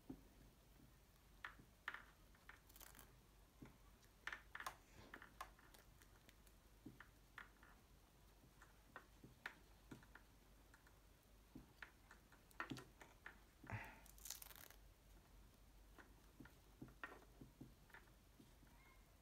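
Faint, scattered small clicks and rustles of hands handling a small round Bluetooth helmet speaker and its pad while pressing it into a motorcycle helmet's foam liner, with one longer rustle about fourteen seconds in.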